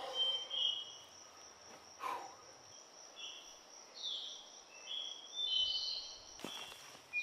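A steady high-pitched drone of insects calling in the forest, with short chirping notes repeating over it and a few soft footfalls on the trail, around two seconds in and again near the end.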